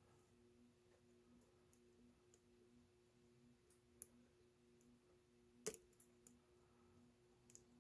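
Faint, scattered clicks of a lock pick and tension wrench working the pins of a solid brass pin-tumbler padlock, with one sharper click a little past halfway and a quick pair near the end.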